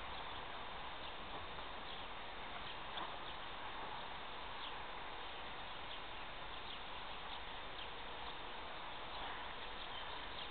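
Quiet outdoor ambience: a steady hiss with birds chirping, many short falling chirps coming again and again.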